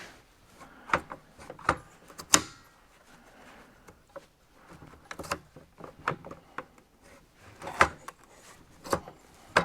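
Scattered metal clicks and knocks from a truck seat base's tracks and lock parts being handled and worked by hand. The loudest knock comes a little over two seconds in.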